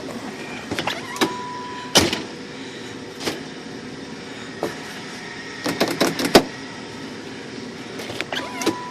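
Mercury Grand Marquis door being worked: a series of sharp clicks and clunks from the power door lock and handle, the loudest about two seconds in and a cluster around six seconds, with a short steady beep about a second in and again near the end. The lock, whose actuator had come loose from the latch, now works again.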